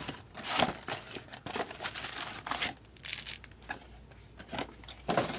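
Card-box packaging being handled: irregular crinkling and tearing rustles of wrapping.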